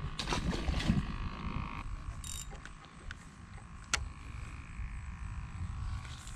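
Fishing rod and reel handled during a cast: rustles and small clicks, a brief hiss about two seconds in, and one sharp click about four seconds in.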